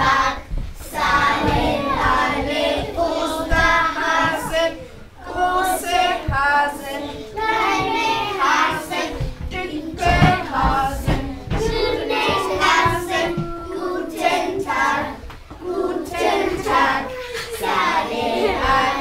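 A group of young children singing an action song together.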